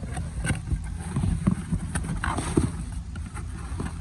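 Hands rummaging in a cardboard shipping box: plastic wrap and bubble wrap crinkling, with a small cardboard parts box and loose parts knocking several times over a steady low rumble.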